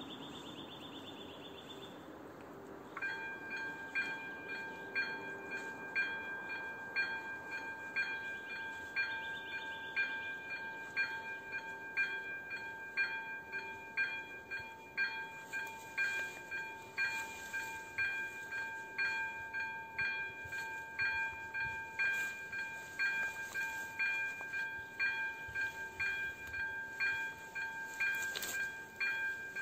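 Electronic level-crossing warning bell (AŽD electronic bell type 02) starts about three seconds in and rings steadily, striking about once a second, as the crossing warns of an approaching train.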